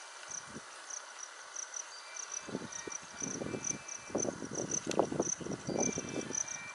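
Insects chirping steadily, a high pulsing trill about twice a second over a fainter continuous buzz. From about two and a half seconds in, irregular low rustling noise rises over it for several seconds and is the loudest sound.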